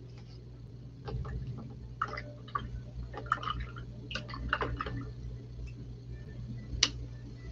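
Paintbrush being swished and tapped in a cup of rinse water: irregular small splashes and clicks against the cup, with one sharper tap near the end.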